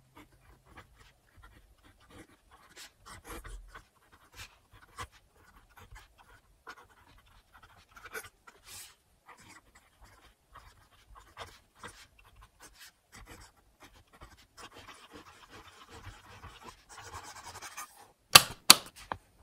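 Steel-tipped nib of a 1941 Parker Duofold Herringbone fountain pen scratching across paper in short writing strokes, turning into a longer continuous scratching of looping scribbles. A few sharp clicks near the end.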